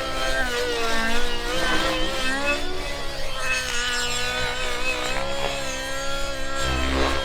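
OS 91 nitro model engine with a tuned exhaust pipe, running at high revs, its pitch rising and falling as the model is flown.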